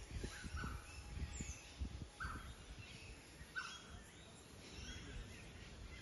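Faint calls of a bird: three short, falling notes about a second and a half apart, with fainter chirps after them. Low thumps in the first couple of seconds.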